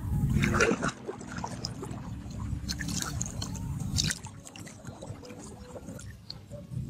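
Water sloshing and splashing around a person wading and reaching down into shallow water by hand, loudest in the first second, then smaller scattered splashes and drips.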